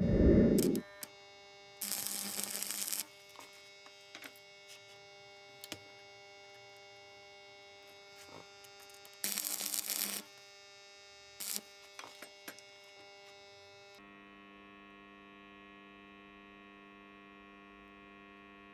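Steady electrical mains hum. Over it are a thump at the very start, two short bursts of hiss about two and nine seconds in, and a few light clicks and knocks.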